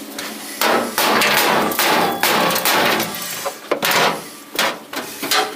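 Welding on sheet-steel car floor panel in about six short bursts, each under a second, stopping and starting.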